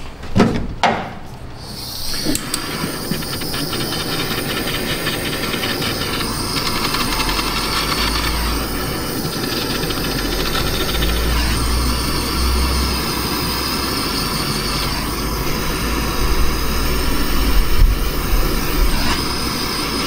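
Small handheld butane torch burning with a steady hiss from about two seconds in, heating solder on a crimped wire joint.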